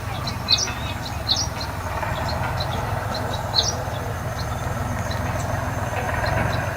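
Baya weaver birds chirping: short, sharp, high calls repeated every second or so, over a steady low rumble.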